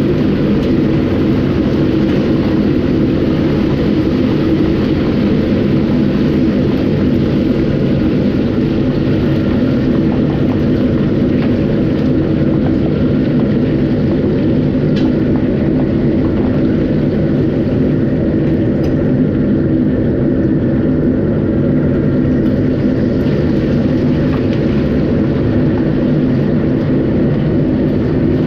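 A steady, loud, low roar with a constant hum, unchanging throughout.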